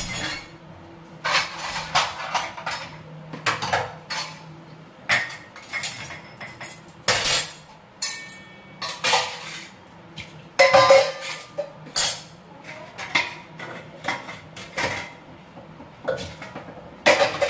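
Metal kitchen utensils clattering and clinking as steel cups, a tea strainer and other dishes are picked up and set down in a dish rack: irregular sharp clanks, with one short ringing metallic note about eight seconds in.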